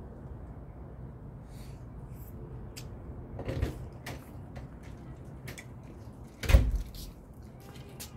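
Faint clicks of chopsticks against a plate during eating, with a thump about three and a half seconds in and a much louder short thump about six and a half seconds in, over a steady low background noise.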